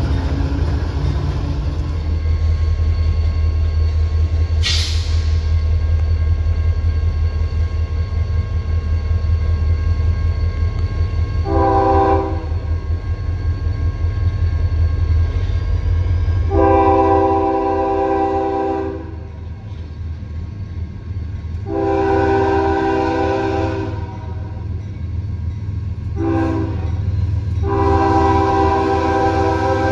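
CSX diesel freight locomotive's air horn sounding the grade-crossing signal: a short blast about twelve seconds in, then long, long, short, long. Underneath runs the steady low rumble of diesel locomotive engines, which falls away about seventeen seconds in. There is a brief high hiss near the five-second mark.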